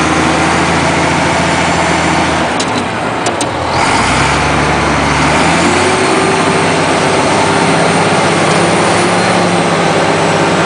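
Komatsu D83 bulldozer's diesel engine running. About three seconds in its note dips and changes, then settles into a new steady pitch, with a whine rising and holding steady from about six seconds in.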